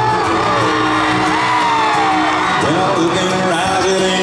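Live country band playing an instrumental intro, with whoops and yells from the crowd.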